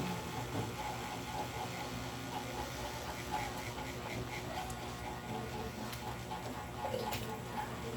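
A steady low electrical hum, with faint voices in the background.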